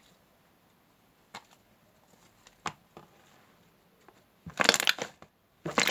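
Fluffy shaving-foam slime being squeezed and pulled by hand: a few faint sticky clicks, then two short bursts of crackling squelch near the end.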